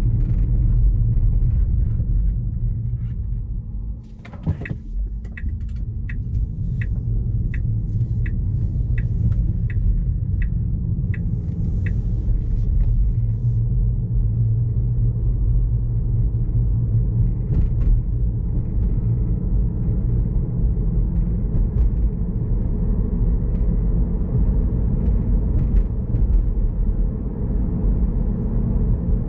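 Steady tyre and road rumble inside the cabin of an electric Tesla Model 3 as it drives. About four seconds in the rumble quietens briefly, then about ten regular turn-signal ticks follow, roughly one and a half a second, as the car turns onto another street.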